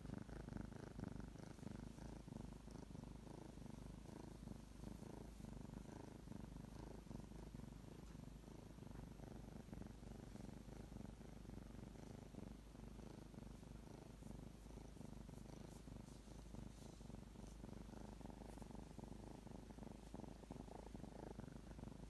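Three-month-old kitten purring softly and steadily while being stroked, a sleepy purr of contentment and wanting affection.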